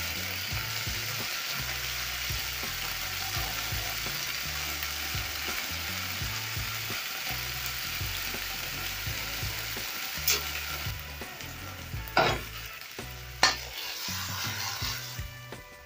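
Beef liver strips sizzling in hot oil in a nonstick frying pan while being stirred with a silicone spatula. The sizzle dies down in the last few seconds, with a few sharp knocks as the pan is handled and the liver is tipped out.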